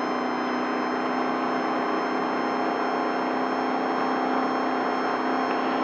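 Desert race truck's engine running at a steady, even pitch as the truck holds its speed, with a constant drone and road noise.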